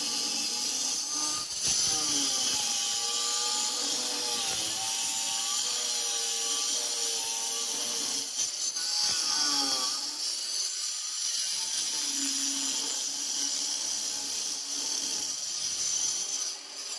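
Handheld electric stone cutter with a diamond blade cutting through a granite slab. It makes a steady, loud grinding hiss, and the motor's pitch wavers as the blade is pushed along the cut. The sound drops in level near the end.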